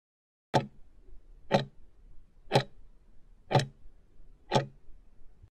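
Clock-tick sound effect of a countdown timer: five sharp ticks, one each second, marking off the last five seconds of the countdown.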